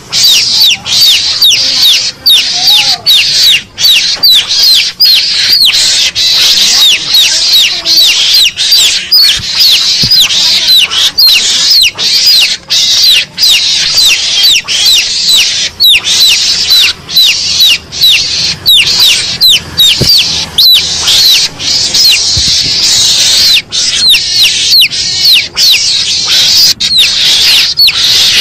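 Garangan (mongoose) lure call played loud: a recording of rapid, shrill, falling squeaks, several a second, running on with brief breaks, meant to provoke a mongoose into coming out.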